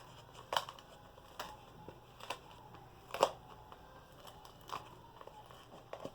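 Dried crust of an iceberg slime crackling and crunching as fingers press and break into it, in irregular sharp crackles.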